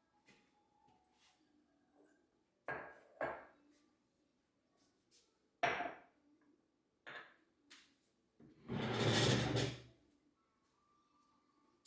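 Household handling sounds: several separate knocks and clunks of objects being set down or moved, then a louder rushing or scraping sound lasting about a second near the end.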